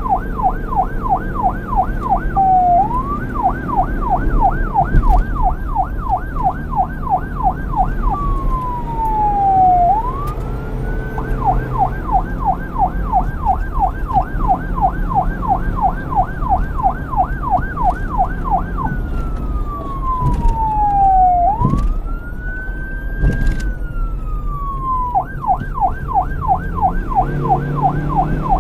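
Police car electronic siren alternating between a fast yelp, about three quick up-and-down sweeps a second, and slow wail glides that fall and rise again. A long wail comes near the middle and another in the last third, over a low vehicle rumble.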